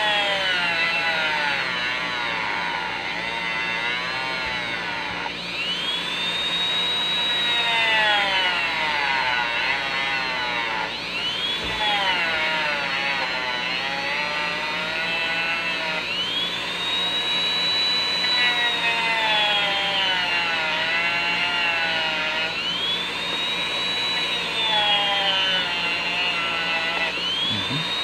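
Rotary tool with a cut-off disc cutting into the neck connector of a 1/6-scale articulated figure body. Its motor whine sags slowly in pitch as the disc bites and jumps back up each time it is eased off, about every five seconds.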